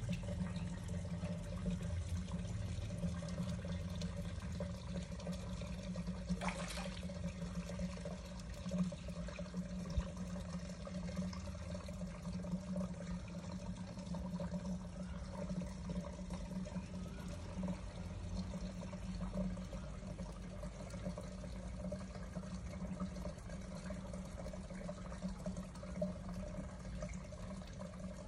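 Water running steadily in a fish pond's circulation, over a steady low hum.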